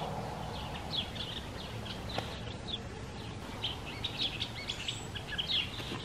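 Small songbirds chirping in quick runs of short, high notes, over a steady low background noise.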